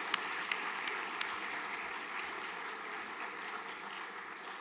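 Audience applauding, with a few sharp individual claps standing out in the first second or so, the applause slowly dying away.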